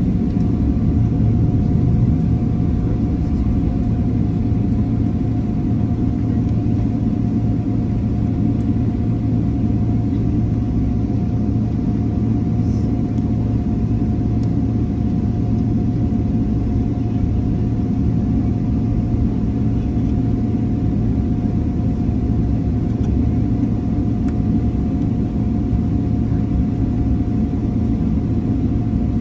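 Cabin noise of a jet airliner taxiing, heard from a window seat over the wing: a steady low rumble from the engines and the rolling aircraft, with a faint constant hum above it.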